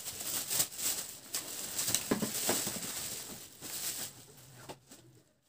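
Clear plastic wrapping around a flat-screen TV rustling and crinkling as the set is handled and the bag is pulled off, in irregular crackles that fade out near the end.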